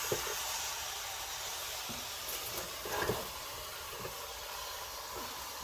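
Pot of curried alligator gar cooking on the stove, a steady sizzling hiss.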